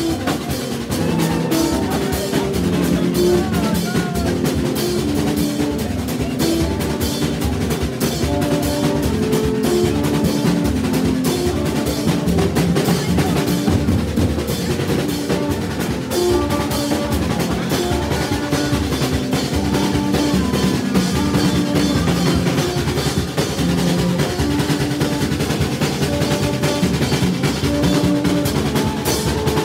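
A Haitian percussion band playing a fast, steady groove on hand drums, a snare drum and a hand-held cymbal, with short repeated horn notes over the beat.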